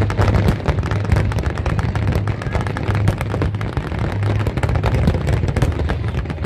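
Fireworks display: many aerial shells bursting in a dense, overlapping barrage, several reports a second with no pause, over a steady low rumble.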